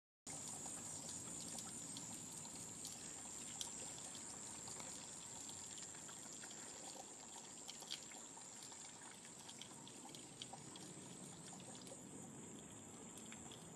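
Faint, steady outdoor background noise, starting abruptly just after the start, with a high continuous drone that fades out about nine seconds in and a few small scattered clicks.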